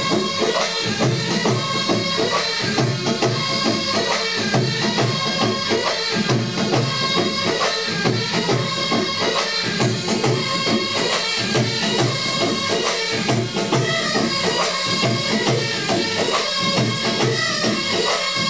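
A large ensemble of snake charmers' pungis (been, gourd reed pipes) playing a reedy, droning melody in unison, over hand drums keeping a steady rhythm.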